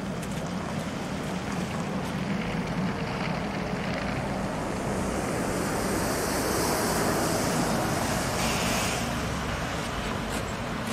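Tram passing, the rush of its wheels on the rails swelling to a peak with a high hiss about six to nine seconds in, then falling away.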